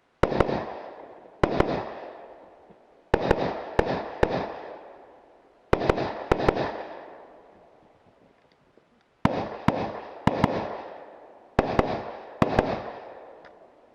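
Rifle shots in a practical shooting stage: about twenty shots, mostly fired as quick pairs, in clusters a second or two apart, each bang followed by a long echoing decay.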